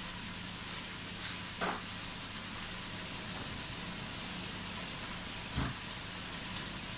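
Chicken wings sizzling as they sauté in a stainless steel pot, a steady hiss over a low hum. There is a soft knock about a second and a half in and a sharper, louder knock near the end.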